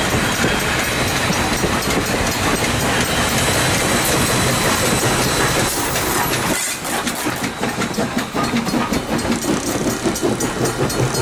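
ALCo 2-8-2 Mikado steam locomotive and its passenger cars rolling past at a grade crossing, wheels clicking over the rail joints with steam hissing. After the engine has gone by, about seven seconds in, a crossing bell rings in a quick, even rhythm.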